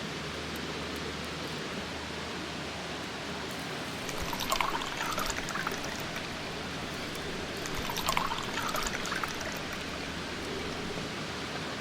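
A steady rush of flowing water, like a stream. Two short spells of small clicks and rustles come over it, about four and eight seconds in.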